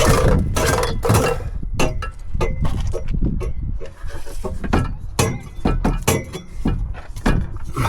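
Irregular metal knocks and clanks as a rusty car exhaust is bashed and forced off: a dozen or so uneven strikes, with a brief hiss about four seconds in.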